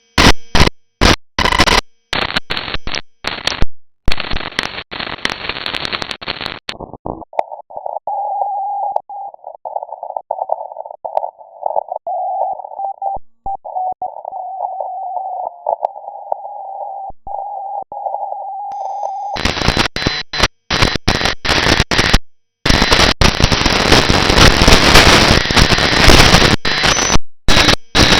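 Shortwave radio receiver audio: wide-band static and hiss that cuts in and out abruptly as it is tuned. About seven seconds in, a narrow filter leaves a steady tone over noise, near the pitch of a Morse signal. Wide static returns about twenty seconds in.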